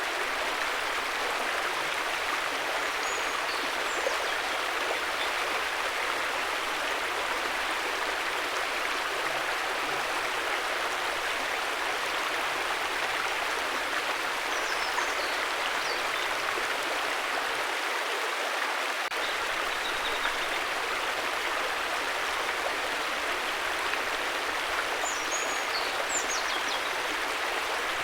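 River water flowing in a steady, even rush, with a few faint high chirps at three points.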